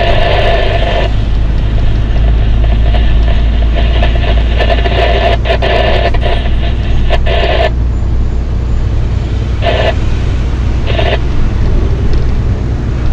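Steady low drone of a vehicle's engine and road noise heard from inside the moving vehicle. Over it, a loud steady tone with many overtones sounds for about a second at the start, again for several seconds in the middle, and in two short blips near the end.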